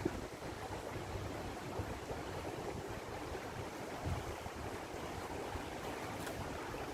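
Waterfall rushing: a steady wash of falling water, with uneven low wind rumble on the microphone.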